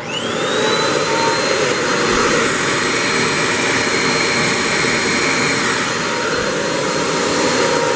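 Hoover WindTunnel 3 Pro Pet upright vacuum cleaner switched on: its motor spins up with a quick rising whine, then runs steadily at full speed with a loud rush of air, the brush roll not yet engaged.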